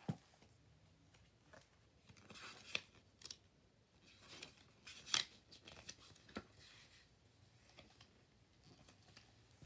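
Pages of a hardcover picture book being turned: soft paper rustles and swishes, with the sharpest flick about five seconds in.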